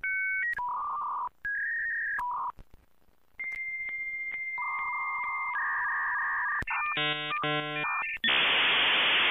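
Dial-up modem connection sound effect: a run of short dialing tones, then a steady high answer tone with shifting lower tones under it, a buzzy handshake about seven seconds in, and a loud burst of hiss near the end.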